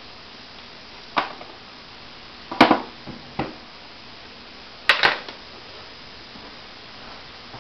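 Several sharp knocks and clicks, two of them in quick pairs, over a steady hiss, as someone moves and handles things right beside the microphone.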